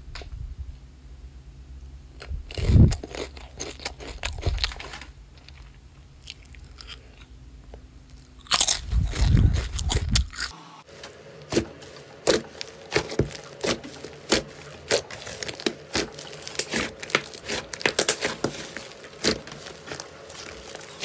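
Slime being squeezed and pressed by hand: first a soft pink strawberry-shaped squishy, with scattered crackles and a loud squelching burst shortly before halfway. Then, after a sudden change about halfway, slime gives a run of sharp crackling pops, several a second.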